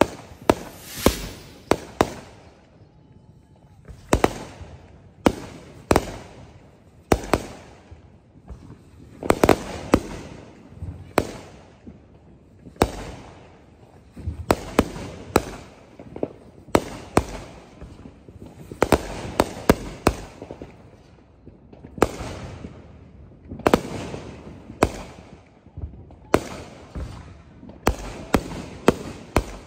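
Fireworks show: aerial shells bursting in quick succession, one sharp bang after another, several a second at times, each with a rumbling echo after it.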